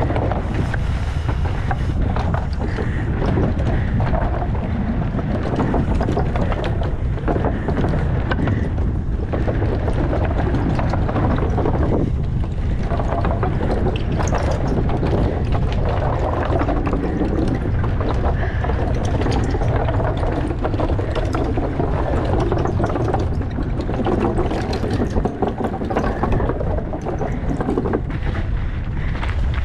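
Mountain bike ridden fast downhill: heavy wind rush on the microphone, with tyres and frame clattering and rattling over wooden boardwalk slats, then rolling on rocky dirt trail near the end.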